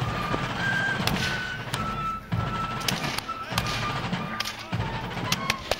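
Music: a melody of high held notes that step up and down, over a low repeating beat, with a few sharp, brief cracks or thuds through it.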